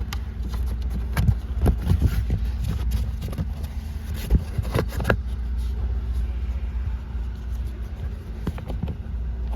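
Plastic under-glove-box trim cover being handled and pushed back into place, a run of sharp clicks and knocks in the first five seconds and a few more near the end, over a steady low hum.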